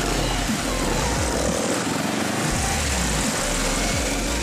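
Motorcycle engine and wind noise while riding, with background music under it.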